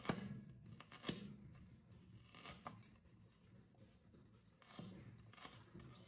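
Chinese cleaver slicing through red shallots and striking a bamboo cutting board: a few crisp cuts at uneven intervals, the first two loudest.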